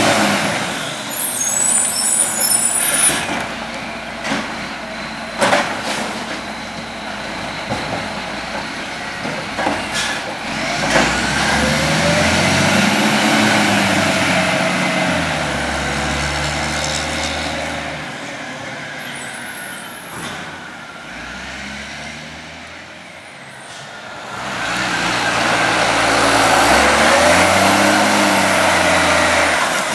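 Iveco Acco garbage truck's Cummins ISC diesel engine revving up and down several times. Short air-brake hisses come about two seconds in and again about twenty seconds in, with a few sharp clunks in between. The engine fades a little past the twenty-second mark, then grows louder again near the end.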